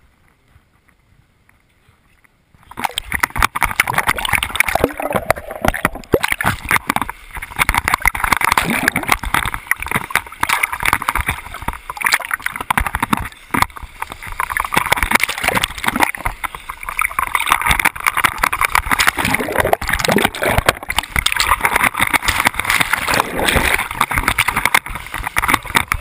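Choppy waves and a swimmer's splashing washing over an action camera held at the water's surface on a pole: loud, continuous, irregular splashing that starts suddenly about three seconds in after a quieter opening.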